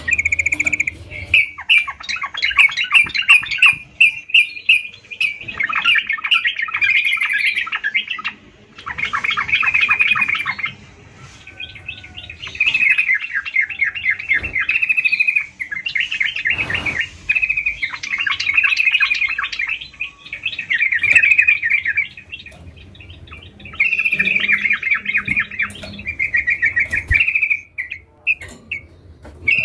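Yellow-vented bulbul (trucukan) singing vigorously: long runs of rapid, chattering notes repeated one after another, with short pauses between phrases.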